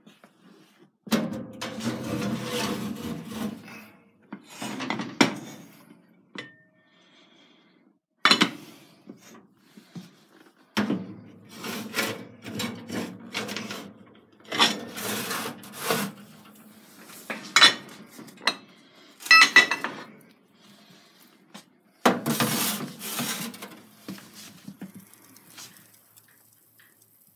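Aluminium cooking pots scraping and clanking against the wire rack and metal walls of a wood-fired cookstove oven as they are slid in, in a run of scrapes with a few sharp clanks.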